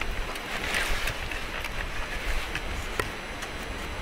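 Steady wind noise with a few light wooden knocks and clicks, the clearest about three seconds in, as split firewood is handled and stood upright on a wooden chopping block.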